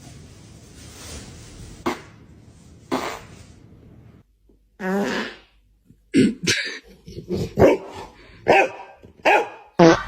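A dog barking: a rapid run of short, sharp barks through the second half, after a longer single call about five seconds in.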